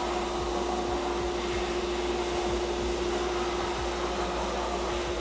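Abrasive blast cabinet running: a steady rushing hiss of compressed air and grit from the blast nozzle against a bare aluminium wheel, with a steady hum underneath. This is the surface preparation of the wheel before powder coating.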